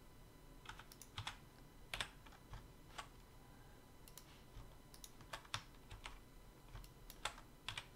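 Faint, irregular clicks of a computer keyboard and mouse as editing shortcuts are pressed, with Tab tapped twice and Ctrl+X, about fifteen in all. The sharpest click comes about two seconds in and another near the end.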